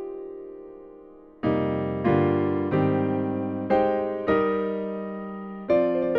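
Casio Privia PX-S7000 digital piano playing a piano-type factory preset. A held chord fades away, and about a second and a half in a slow run of chords begins, each struck sharply and left to ring and decay.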